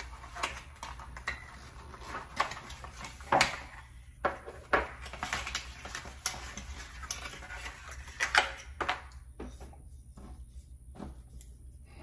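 Folded paper and cardboard packaging being handled and unfolded, rustling and crinkling, with scattered sharp taps and clicks.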